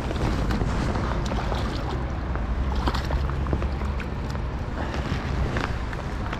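A steady low rumble with wind noise on the microphone and a few faint small clicks.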